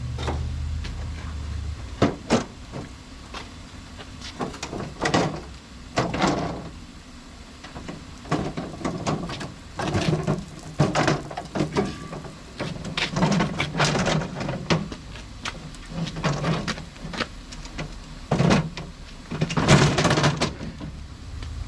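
Portable folding aluminum wheelchair ramp being handled and set up: irregular clanks, knocks and scraping rattles of the aluminum sections, with the loudest cluster near the end. A low hum stops about a second in.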